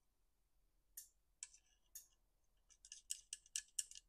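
Light, sharp clicks of a small metal piece being worked inside the broken mounting socket of an old chainsaw handlebar. There are three spaced clicks, then a quick run of about eight near the end.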